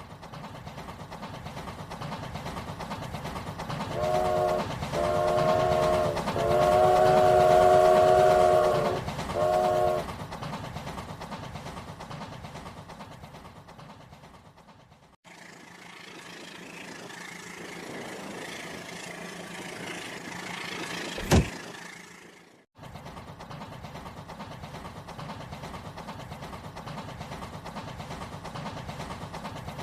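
Train running with a steady rumble, its horn sounding four blasts, the third one long. Partway through the sound cuts abruptly, a quieter stretch with one sharp click follows, then the rumble returns.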